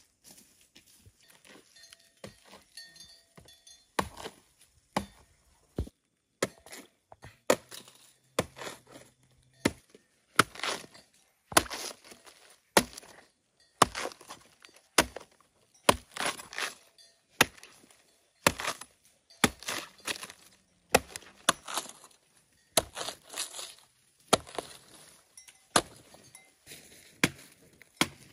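A large chopping knife slicing through a banana tree trunk (pseudostem) into rounds: a steady series of crisp chops, roughly one to two a second, starting a few seconds in after some softer knocks.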